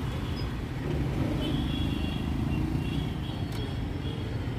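Street background noise: a steady low rumble like passing traffic, with faint high tones coming and going.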